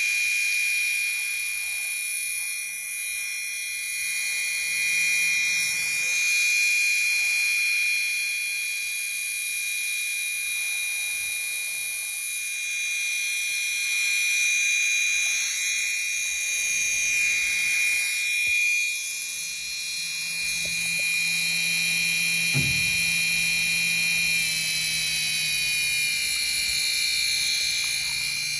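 Racerstar 4023 850 kV brushless RC motor running on the bench and spinning a propeller that is moving air: a steady high-pitched electric whine whose upper tones waver and shift in pitch several times as the throttle changes. A brief low knock sounds about three-quarters of the way through.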